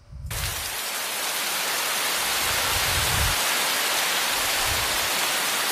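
Heavy rain sound effect playing back: a dense, steady hiss of downpour that swells in over the first second, with a few soft low swells beneath it.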